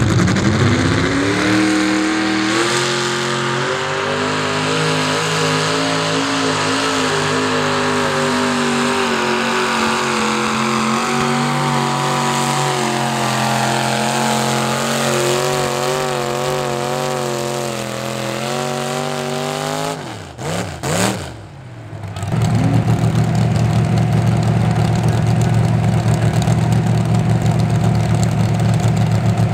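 Modified pulling tractor engine run at full throttle, pulling a weight-transfer sled: its pitch climbs at the launch and steps up again, holds high, then wavers as the pull goes on. About two-thirds through it breaks off and a lower, steady engine rumble takes over.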